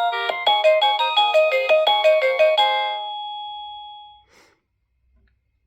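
Wireless doorbell speaker playing one of its built-in electronic chime tunes: a quick, bright run of notes that sounds like the circus or the funfair. It ends on a held note about three seconds in, which rings away within a second.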